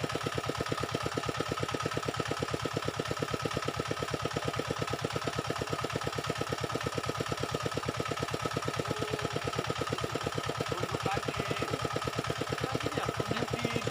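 A small engine running steadily at idle, with an even pulsing beat of about nine a second.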